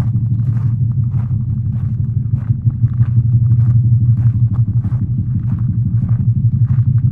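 A steady low hum played through a loudspeaker, with footsteps at a steady walking pace, about one and a half steps a second.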